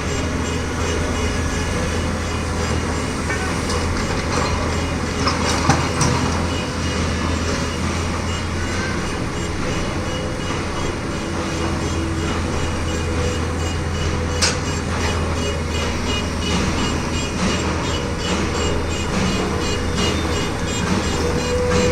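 Heavy construction machinery running with a steady low rumble, and a few sharp metallic knocks: two close together about six seconds in, one more around fourteen seconds.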